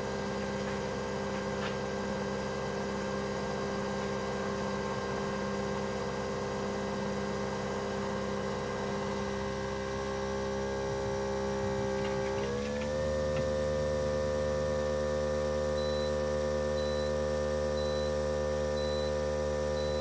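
Nespresso VertuoPlus coffee machine brewing a mug of coffee, its motor spinning the capsule: a steady hum with several tones that glides up slightly in pitch and gets a little louder about two thirds of the way through. Near the end, faint high beeps about once a second come from a dishwasher that has just finished its cycle.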